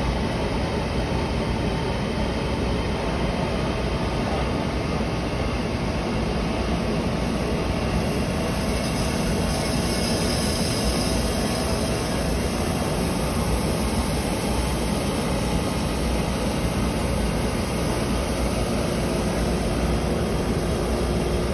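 Kice multi-aspirator running: its suction fan and the air rushing through the column and cyclone make a steady noise as a sample of plastic pellets with calcium carbonate dust is fed through for air separation. A brighter hiss comes up for a few seconds around the middle.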